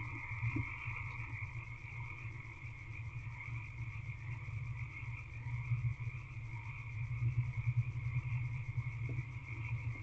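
A steady chorus of frogs calling, carried on continuously with a low rapid pulsing underneath.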